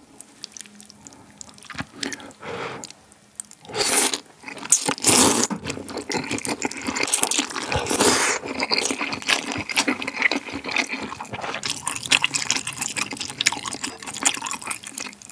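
Metal chopsticks stirring noodles in spicy malatang broth, then flat corn noodles slurped up wetly, with several loud sucks about four, five and eight seconds in, followed by steady wet slurping and chewing.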